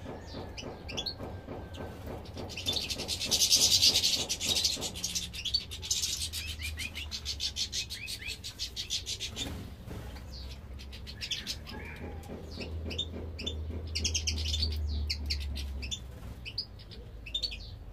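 Small caged finches, European goldfinches with a canary among them, chirping and twittering, with several dense runs of rapid twitter between scattered single chirps.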